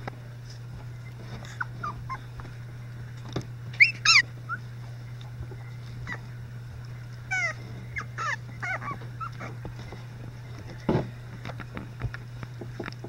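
Three-week-old Icelandic Sheepdog puppies whimpering and squeaking in short, high-pitched cries, a cluster about four seconds in and another run a few seconds later, with soft rustles and clicks from the squirming litter over a steady low hum.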